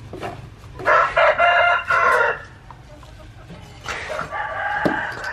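A rooster crowing twice: a loud crow of about a second and a half, then a second, quieter crow near the end.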